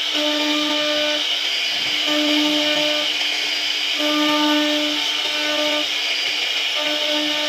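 CNC router carving wood: a steady high spindle whine, with a lower motor hum of unchanging pitch that starts and stops every second or so as the machine moves.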